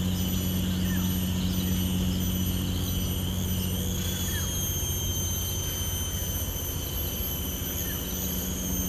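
Steady low hum with a thin, high-pitched whine above it that wavers slightly about four seconds in, and a few faint short chirps.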